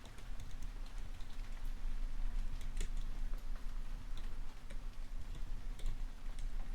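Computer keyboard typing in irregular keystroke clicks, over a steady background of falling rain.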